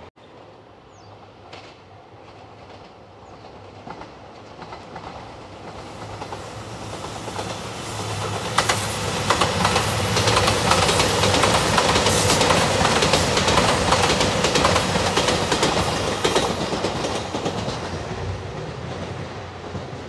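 JR Shikoku 2700 series diesel limited express train passing close by. Engine noise and wheel clicks over the rail joints swell up, are loudest for several seconds while the cars go by, and then fade away.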